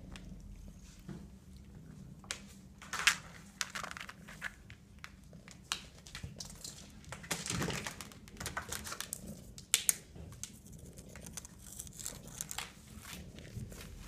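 A cat scrabbling and batting at a toy mouse on a string across the floor: irregular scratchy scuffles and rustling, with sharp clicks, the loudest about three seconds in and twice near ten seconds.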